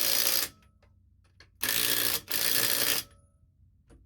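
Ratchet wrench clicking in quick runs as lug nuts are run down onto a wheel's studs: a short run at the start, a few faint clicks, then a longer run of about a second and a half, briefly broken in the middle.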